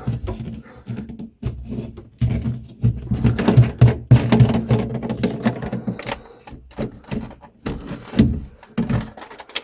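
Irregular knocks, clunks and scrapes of a plastic sink drain pipe being worked loose and pulled off a garbage disposal's outlet.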